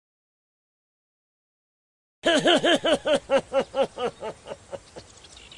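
Silence, then about two seconds in a cartoon hare's laugh voiced by an actor: a long run of quick 'ha-ha-ha' syllables, about five a second, each rising and falling in pitch, fading away toward the end.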